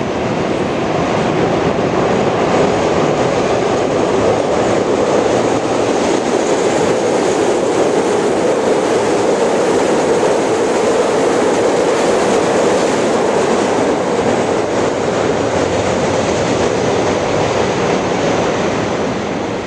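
CTA 'L' rapid transit train passing overhead on a steel elevated structure: loud, steady noise of the cars' wheels on the rails. It swells over the first couple of seconds and fades near the end.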